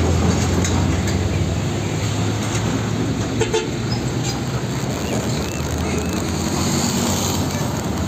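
A Mitsubishi Fuso tanker truck's diesel engine running with a low, steady rumble as the truck drives past in road traffic.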